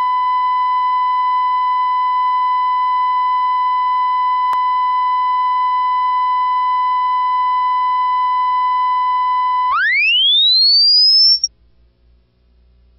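Steady 1 kHz reference tone at the head of a videotape, with a single click about four and a half seconds in. Nearly ten seconds in, the tone glides sharply up in pitch and cuts off, leaving a faint low hum.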